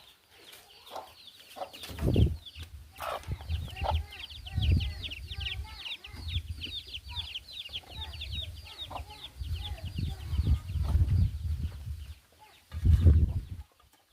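Chickens calling, with a long run of rapid, high-pitched chirps repeated several times a second. Low rumbling knocks come and go under them, loudest about two seconds in and again near the end.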